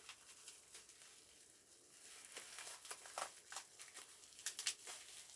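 Faint crinkling and rustling of plastic packaging being handled as a vinyl figure is unwrapped, with a few sharper crackles in the second half.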